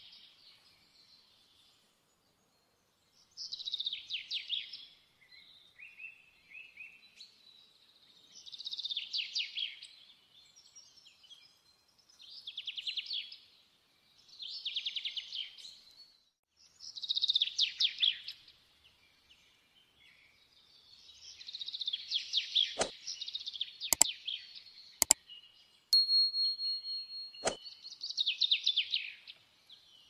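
Canary singing: short trilled phrases repeated every few seconds, with a few sharp clicks a little over three quarters of the way through.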